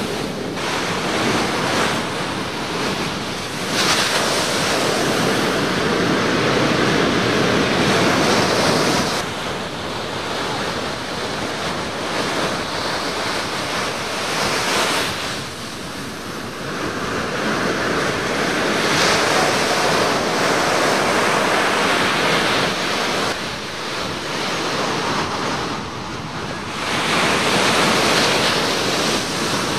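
Ocean surf breaking on a beach: a continuous rushing wash that swells and fades with each set of waves.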